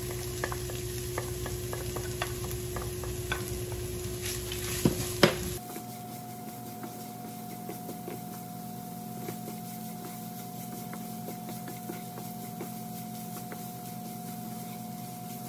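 Bacon, onion and grated carrots sizzling in a frying pan while a wooden spatula stirs and scrapes them, with many small clicks of the spatula on the pan and two louder knocks about five seconds in. After that the sound drops to a quieter, steadier sizzle with occasional light scrapes.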